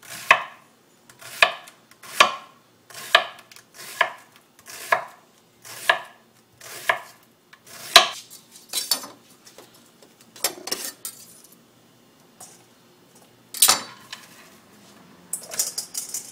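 Kitchen knife slicing an onion into thin rings on a cutting board, steady strokes about once a second. About halfway through the strokes stop, giving way to scattered knocks and clatter, then a brief bright clinking near the end.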